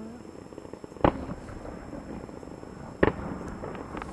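Fireworks going off: two sharp bangs about two seconds apart, over a faint continuous crackle, with a few small pops near the end.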